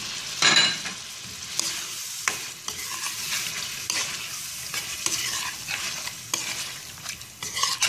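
Beef pieces sizzling in hot ghee and butter in a karahi as milk is stirred in, with a spatula scraping and clicking against the pan. The loudest sizzle and scrape comes about half a second in, then a steadier frying hiss with scattered scrapes.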